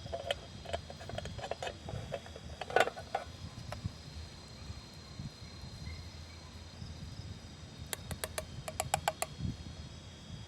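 Insects chirring steadily at a high pitch, with scattered clicks and knocks in the first few seconds and a quick run of clicks about eight seconds in.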